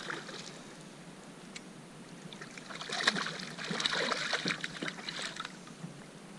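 A small hooked Guadalupe bass splashing at the water's surface as it is reeled up beside a kayak, with a quick run of splashes about three to five seconds in.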